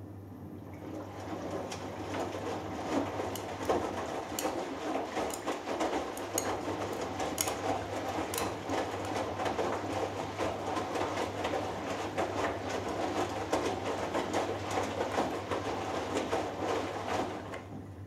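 Hoover Dynamic Next washing machine drum turning in the final rinse: water sloshing and wet laundry tumbling, starting about a second in and stopping just before the end, over a steady low hum.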